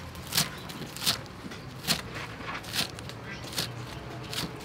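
Cleaver chopping through soup basil stalks on a round wooden chopping block: six steady chops, about one every three-quarters of a second.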